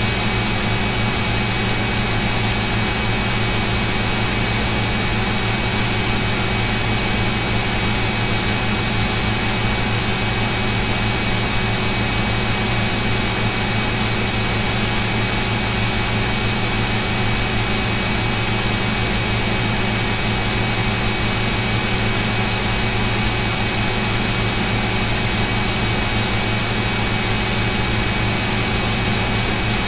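Steady, unchanging noise with a low hum and a few faint steady tones, loud and without any break or change.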